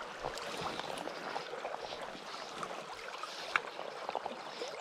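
Small creek babbling over stones, a steady crackly trickle of running water. A single sharp click sounds about three and a half seconds in.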